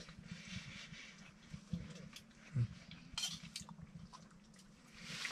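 Metal spoon scraping and clinking against a steel mug of stew, a few short, scattered scrapes and taps.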